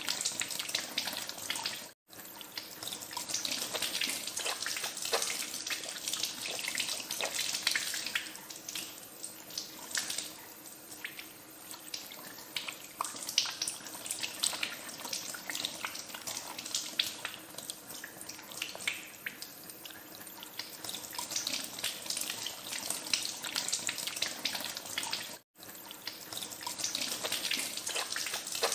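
Tap water running into a sink while hands are washed under it, with uneven splashing. The sound cuts out for an instant twice, about two seconds in and again near the end.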